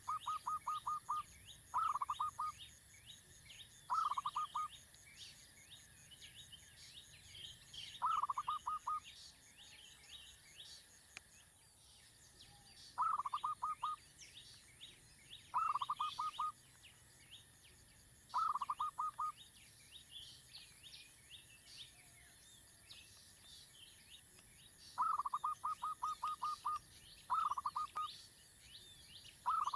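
Bird calls: short bursts of rapid repeated notes, each under a second long, coming every two to three seconds over a constant background of high insect and bird chirping.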